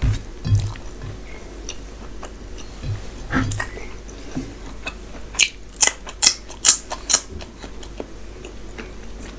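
Close-miked chewing and wet mouth sounds of a person eating rice and mutton curry by hand, with soft low thuds early on and a quick run of about six sharp smacking clicks in the second half.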